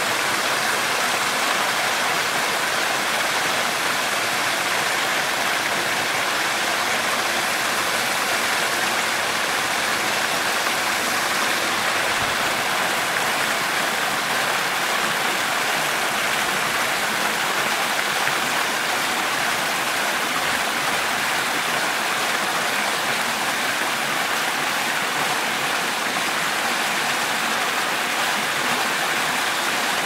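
Waterfall and cascading mountain stream in spate, running high after heavy rain: a loud, steady rush of falling and tumbling water.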